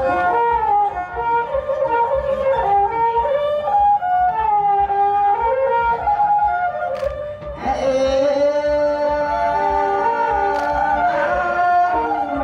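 Traditional Khmer wedding music: an ornamented, wavering melody on reed and bowed instruments with singing, changing to a new phrase about halfway through, over a steady low beat.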